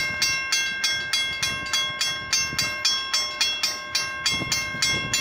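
Railroad level-crossing warning bell ringing steadily, about three strikes a second, signalling that a train is approaching.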